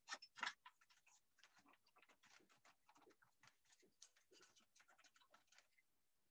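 Near silence, with faint clicks and light scrapes from hands handling the opened Sony DVD recorder's metal chassis and drive; a couple of slightly louder clicks in the first half second.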